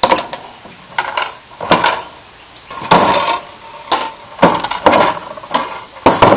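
Bolt cutters snipping through steel coat-hanger wire, with cut pieces of wire clinking onto a plywood board and the cutters clattering as they are handled. A string of sharp snaps and clinks at uneven intervals, several with a short metallic ring.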